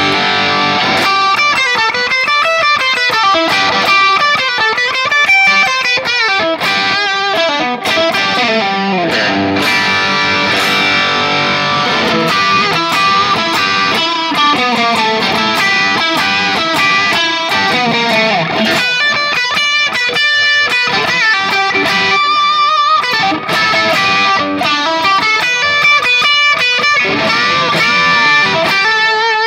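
Electric Telecaster-style guitar played lead through a Valeton GP200 multi-effects processor on a crunch amp tone with an added Tube Screamer (TS9) boost and a little delay; a steady run of single notes with several string bends.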